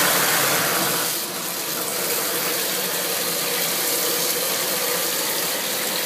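Bathtub faucet running steadily, water pouring and splashing into the tub, dipping slightly in level about a second in.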